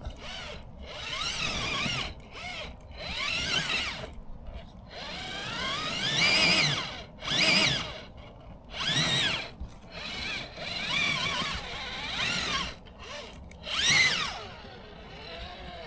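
RC rock crawler's electric motor and gearbox whining in repeated throttle bursts of about a second each, the pitch rising and falling with every burst as it works up a slippery rock climb.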